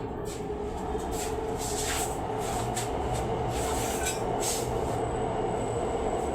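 A steady machine-like rumble and hum, with scattered light knocks and rustles over it.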